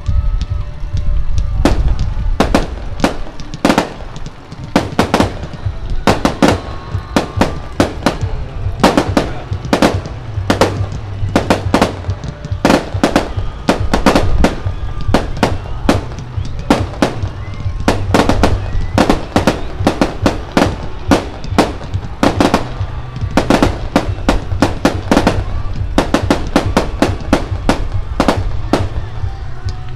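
Aerial fireworks going off in a rapid, irregular barrage of sharp bangs and cracks, a few each second, over a steady low rumble.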